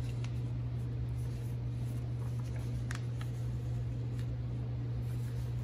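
Sheets of sublimation transfer paper being handled and laid onto can koozies on a heat press, giving a few faint ticks and light paper rustles over a steady low hum.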